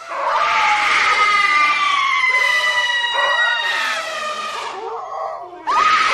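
Horror sound effect: a long, high wailing cry held for about four seconds and slowly falling in pitch, with a second wail starting abruptly near the end.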